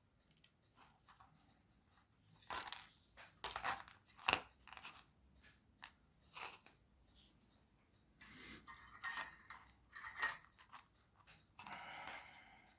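Irregular crunches, sharp clicks and scrapes of small tools and parts being handled during electronics repair work, with a rough rasp lasting about a second near the end.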